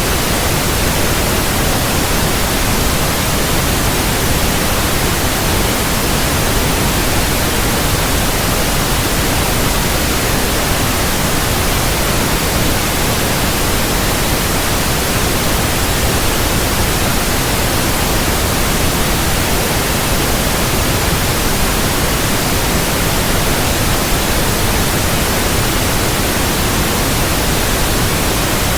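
Steady, unchanging white noise at an even level across the whole range from low to high, a sleep-aid noise for calming infants.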